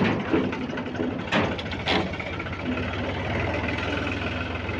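Farm tractor's diesel engine running steadily while driving slowly over a dirt track, with a few sharp knocks in the first two seconds.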